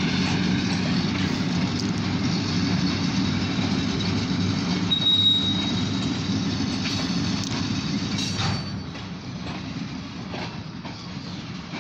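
Freight train of tank cars and covered hoppers rolling slowly through the yard with a steady low rumble, a brief high wheel squeal about five seconds in, and a few knocks around eight seconds in. The sound then drops off as the cars come to a stop.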